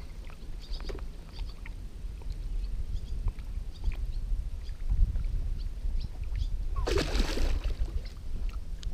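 A hooked carp splashing and thrashing at the water's surface beside a float tube, with water sloshing and scattered small ticks over a low rumble. A louder, brief splash-like burst comes about seven seconds in.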